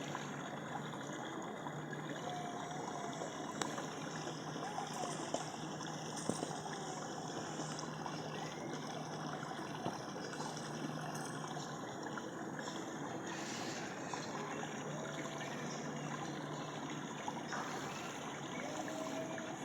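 Steady rush of running water with a low steady hum underneath, and a few faint short whistles now and then.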